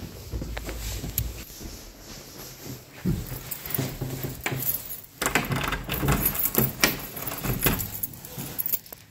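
Keys jangling and clicking against a door's deadbolt and knob lock as the front door is unlocked, with a busy patter of metal clicks from about five seconds in.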